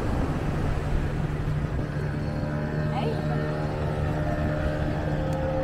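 An engine running steadily, a low droning hum with a higher, even tone joining about two seconds in.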